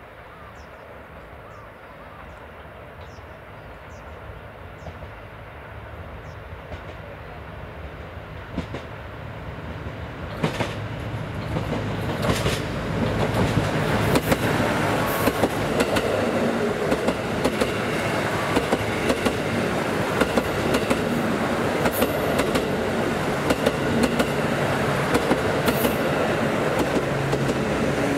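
A 10-car JR Central Series 85 diesel multiple unit, its Cummins diesel engines running, approaching and passing at speed. The engine drone grows steadily louder over the first dozen seconds, then holds as the wheels clatter over rail joints in a steady run of clicks.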